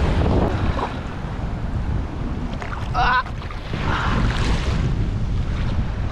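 Wind buffeting the microphone in a heavy low rumble over surf washing in shallow water; a wave surges up with a rush of hissing water about four seconds in.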